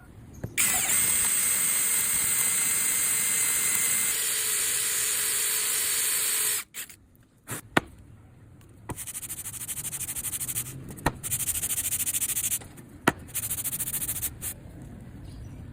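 A high-pitched power tool runs steadily and loudly for about six seconds, then cuts off. After a few clicks it runs again more quietly with a fine flutter, broken by short pauses and a couple of sharp knocks.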